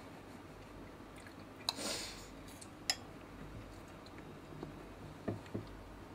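Faint sounds of a person eating breakfast: a short crunchy burst about two seconds in, two sharp clicks, and two soft low knocks near the end.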